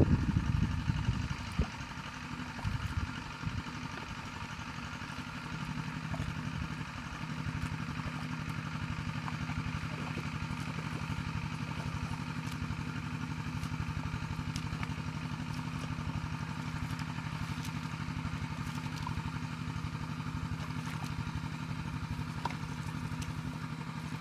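Sloshing of feet wading through muddy water at the start, then from about five seconds in a small engine running steadily at an even idle-like hum.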